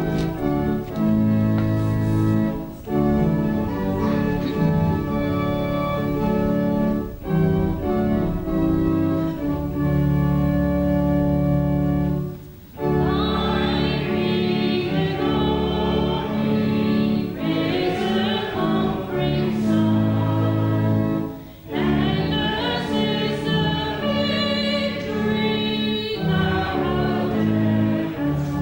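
Organ playing held chords; about 13 seconds in, voices join, singing with the organ, pausing briefly between phrases.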